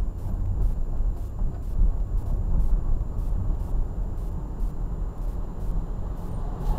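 Steady low rumble of a car driving slowly on a city street, heard from inside the cabin: engine and tyre noise.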